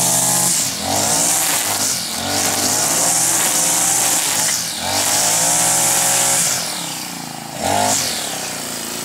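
Husqvarna 324L string trimmer's small Honda-built four-stroke engine running at high revs while the nylon line cuts grass, with a strong high hiss over the engine note. The engine speed sags and picks back up about four times as the line meets the grass, and drops lower near the end before one quick rev.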